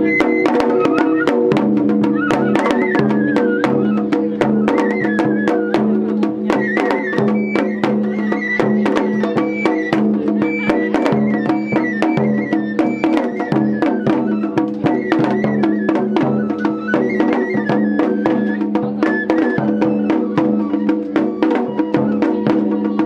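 Japanese festival music: a high flute melody wandering up and down over rapid, steady drum and wood-block strikes.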